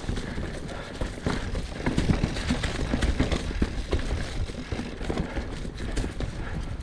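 Mountain bike rolling over a leaf-strewn dirt trail: tyre noise with frequent irregular knocks and rattles as the bike goes over roots and rocks, over a low rumble.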